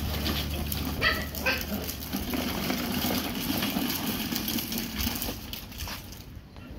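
Hard plastic wheels of a child's ride-on toy car rolling and scraping over stone paving as it is pushed along by foot. A few short high-pitched cries come about a second in.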